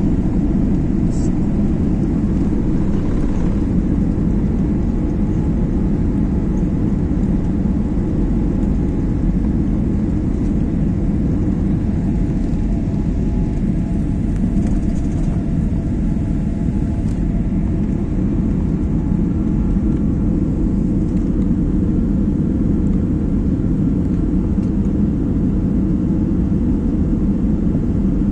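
Jet airliner cabin noise during the climb just after takeoff: a loud, steady, deep rumble of the engines and airflow, heard from inside the cabin at a window seat.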